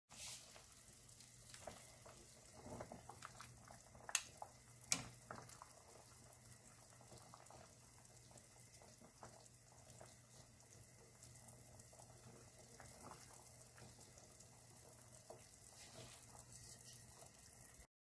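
Pot of shabu-shabu broth with beef, mushrooms and vegetables simmering on the stove, a faint bubbling, broken by two sharp clicks about four and five seconds in.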